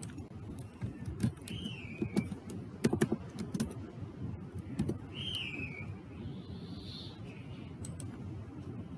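Computer keyboard keys clicking as a short word is typed, a few irregular clicks over a steady low background noise. Two short falling chirps sound faintly, one about two seconds in and one about five seconds in.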